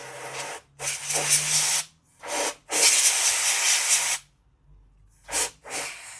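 Aerosol can sprayed in six short hissing bursts onto a laptop logic board, the longest over a second, to show which component is heating up on a shorted rail.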